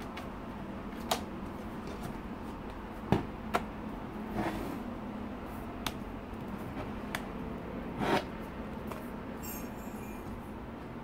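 Hard plastic snap-on shell case being pressed onto the bottom of a 13-inch MacBook Pro: a handful of sharp plastic clicks and snaps spread through, the loudest about three seconds in, over a steady low hiss.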